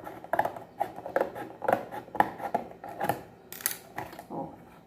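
Scissors cutting through cardboard in a run of short, uneven snips, about two or three a second.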